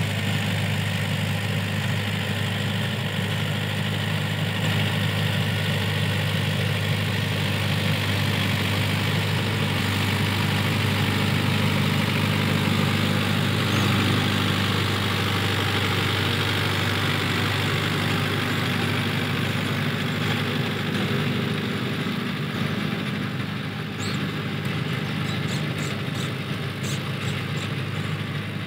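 Mahindra Yuvo Tech+ 585 DI tractor's diesel engine running steadily under load while it pulls a rotavator through the soil. It grows a little fainter near the end.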